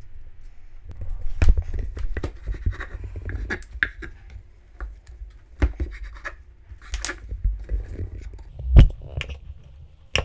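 Chef's knife cutting through stacked sheets of fried fish cake on a wooden cutting board: irregular knocks of the blade on the board with soft scraping, the heaviest knock a little before the end.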